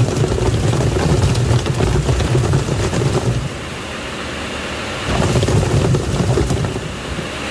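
Washing machine agitating a tub of water: the motor drives the drum in stretches of a few seconds, churning and sloshing the water, with a quieter pause near the middle.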